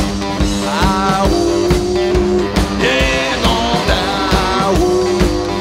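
Live blues boogie on a three-string electric guitar: sliding notes over a steady droning low note, with a drum kit keeping a beat of about two hits a second.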